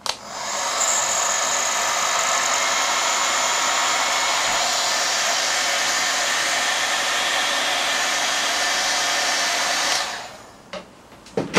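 Heat gun blowing steadily while shrinking heat-shrink tubing over crimped wire ferrules; it comes up to speed as it starts and is switched off about ten seconds in, running down briefly.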